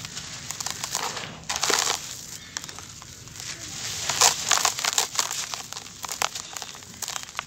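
Hands squeezing and crumbling handfuls of dry, gritty dust in a plastic tub: crunching crackles of grains breaking, with a sifting hiss as the dust pours back down about a second and a half in and again around four seconds in.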